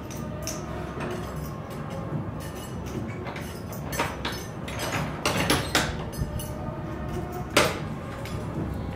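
Door lock and handles on a wooden door being worked by hand: a run of metallic clicks, rattles and knocks, the sharpest about seven and a half seconds in.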